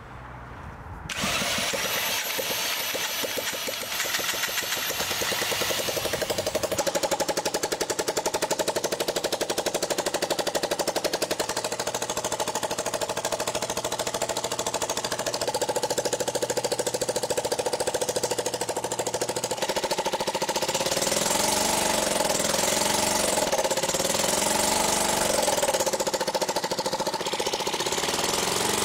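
Homemade single-cylinder rotary-valve engine catching about a second in and then running fast with a rapid staccato firing. Its speed rises and falls a few times near the end.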